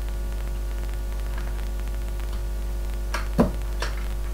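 Small box being opened by hand: three short clicks and knocks about three seconds in, the middle one the loudest, over a steady electrical hum from the recording setup.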